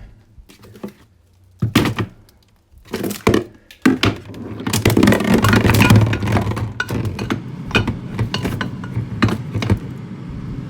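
Several hard thunks and clinks of objects being handled, followed by several seconds of continuous clattering and rummaging with a low hum underneath.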